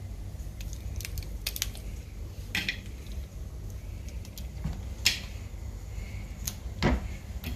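Raw crab being broken apart by hand: a scattering of sharp cracks and clicks of shell as its small legs are snapped off, over a steady low hum.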